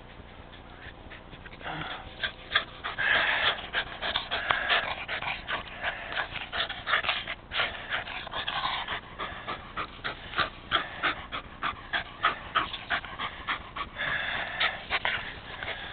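A rat terrier breathing hard and making mouth noises at very close range as it grips and tugs at a ball held in a gloved hand. The sound is an irregular string of short noisy bursts, starting about two seconds in.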